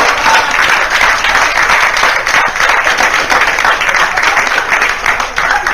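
Audience applauding steadily after a joke's punchline.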